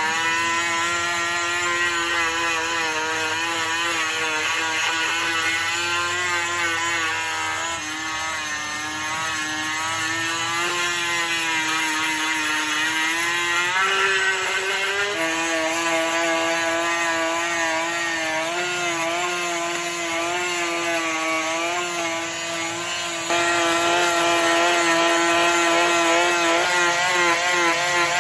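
A motor-driven machine running steadily with a pitched drone. Its pitch shifts a little about halfway through, and it gets louder near the end.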